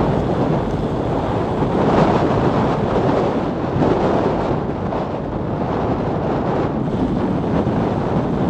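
Wind rushing over the microphone of a camera on a bicycle moving at about 30 km/h, a steady, even rush with no clear pitch.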